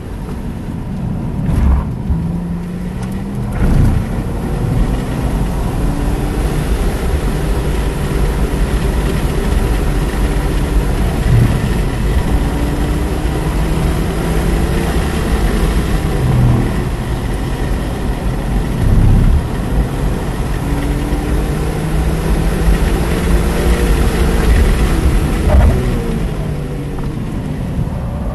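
BMW E46 M3's S54 straight-six engine, heard from inside the cabin at racing speed, its pitch climbing under hard acceleration and falling away under braking for the corners, with a few short breaks in the engine note and a few louder peaks.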